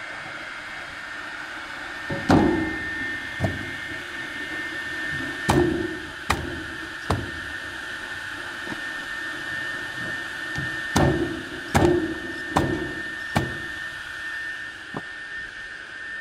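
Homemade electric firewood cutter running with a steady hum and a constant high whine, its cutting wheel biting through pine logs in a series of short, loud cuts: five in the first half, then a quicker run of four.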